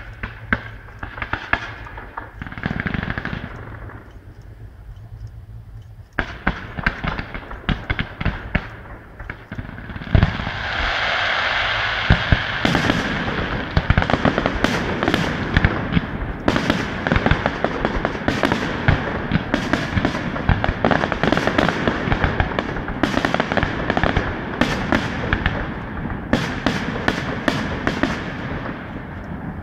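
Aerial fireworks display: shells bursting overhead with rapid sharp bangs and crackling. Sparse at first, it turns into a dense, continuous barrage from about six seconds in.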